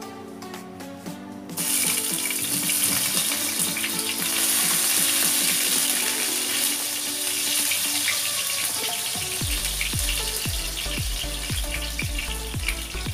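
Chopped garlic hitting hot cooking oil in a wok, starting a sudden loud sizzle about a second and a half in; the sizzling and crackling goes on steadily as the garlic sautés.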